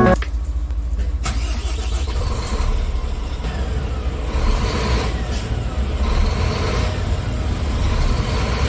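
Scania P380 truck's DC13 six-cylinder diesel engine running at a steady low rumble, with a single sharp knock about a second in.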